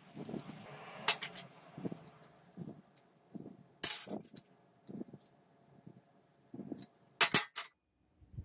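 Small steel parts clinking on a steel welding table as they are handled and set down: sharp metallic clinks about a second in and near four seconds, and the loudest quick double clink near the end, with duller low knocks in between.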